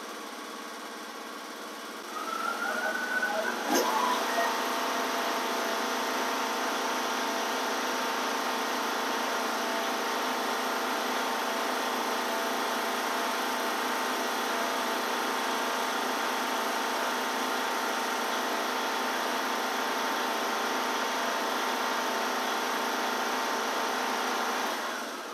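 Briggs & Stratton 21 hp riding-mower engine running at idle, then throttled up about two seconds in, with a rising pitch and a sharp click, to wide-open throttle. It then runs steadily at its governed top speed of about 3380 rpm, set by a freshly adjusted governor, which sounds where it's supposed to be. The sound drops away just before the end.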